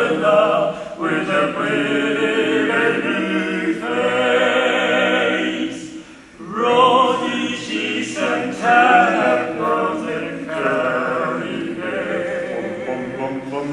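Male barbershop quartet singing a cappella in four-part close harmony, with a brief break about six seconds in before the voices come back in.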